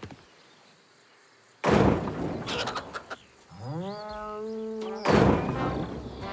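Cartoon sound effects: a loud thud about a second and a half in, then a drawn-out animal-like call that rises in pitch and then holds, then another loud thud near the end.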